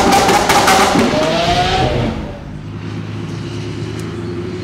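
An engine revving with sharp crackles, cut off abruptly about two seconds in. Then the quieter, steady low note of an Audi R8 with a Larini aftermarket exhaust running at low revs as it rolls slowly along, its pitch edging up slightly.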